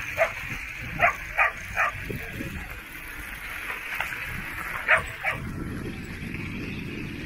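Dog yipping in short, sharp barks: four in the first two seconds, then two more about five seconds in, over a low steady rumble.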